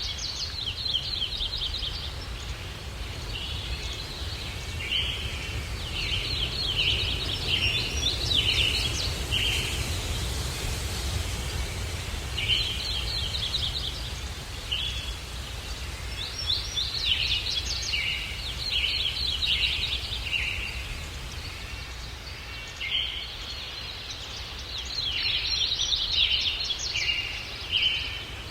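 Songbirds chirping in repeated bouts of quick, high notes, with short pauses between bouts, over a low steady rumble of breeze.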